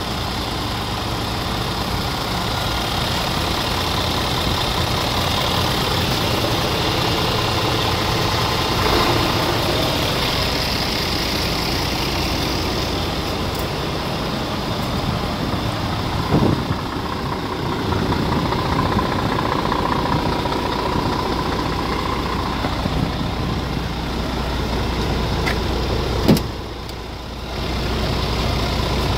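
Scania R490 truck's 13-litre inline six-cylinder diesel idling steadily, with two short sharp knocks, about halfway through and near the end.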